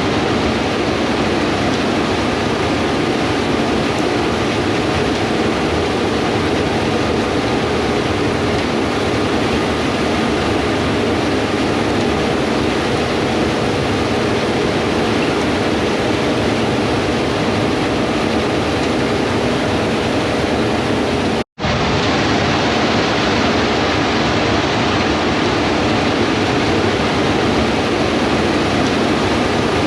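Combine harvester running steadily in the field, a constant machine hum under heavy wind rush on the microphone. The sound cuts out for an instant about two-thirds of the way through.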